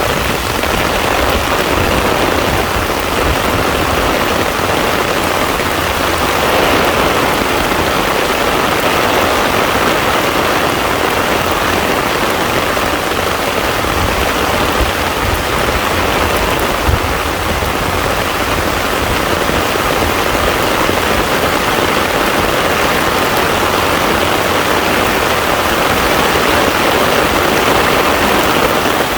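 Heavy rain falling steadily on a pond's surface, a dense even hiss of drops hitting water.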